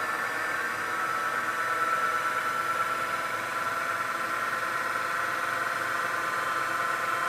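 NetGain ImPulse 9 brushed DC traction motor spinning free on the bench on 12 volts, a steady whine over a soft hiss. It runs smooth and quiet, its brushes and commutator in good condition.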